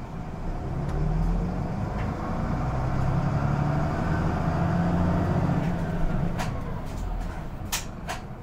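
Diesel engine of a Mitsubishi Fuso medium-size city bus (TKG-MK27FH) heard from inside the passenger cabin, working harder about a second in as the bus pulls away, then easing off near the end. A few sharp clicks or rattles come near the end.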